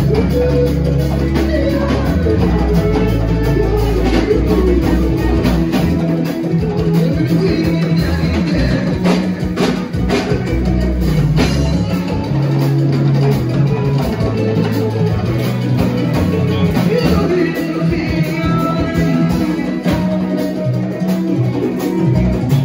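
Live band playing loud dance music with electric guitar, bass and drum kit.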